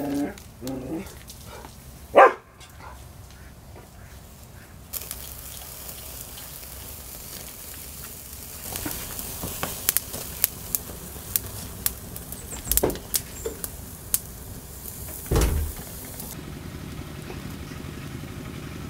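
Small fire of dry sticks burning, crackling and popping with a steady hiss from about five seconds in until it cuts off shortly before the end. Earlier, about two seconds in, there is a single loud sharp sound.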